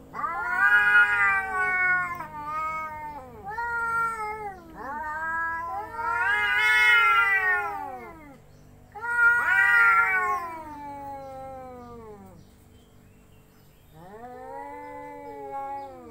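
Cats yowling in a face-off before a fight: a string of long, wavering threat howls that rise and fall in pitch, one after another with short pauses between.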